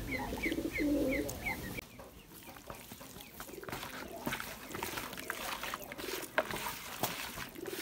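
Birds calling for the first two seconds: a rapid high chirp about three times a second over lower repeated calls. Then a hand squishes and kneads raw chicken pieces, spice paste and potato chunks in a plastic bowl, with many small soft clicks.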